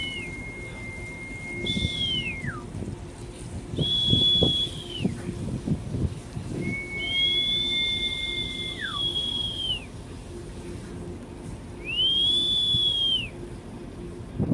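Two people whistling long, held single notes, one pitched higher than the other. They take turns and twice overlap, and each note drops off in pitch at its end. A low rumble runs beneath.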